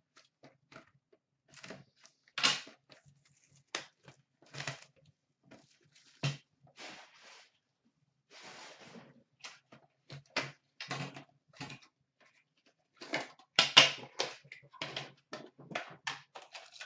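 Hands unwrapping and opening a sealed cardboard hockey card box: scattered sharp clicks and knocks of the box being handled, with a short stretch of plastic-wrapper crinkling about eight seconds in. Near the end the pack case inside is slid out of the box.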